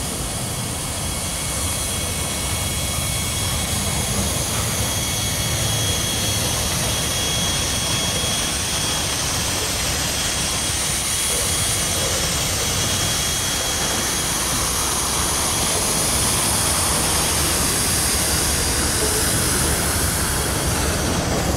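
Freight train gondola cars rolling past in a reverse shove move: a steady rumble of steel wheels on rail, with a faint thin high tone over the first half.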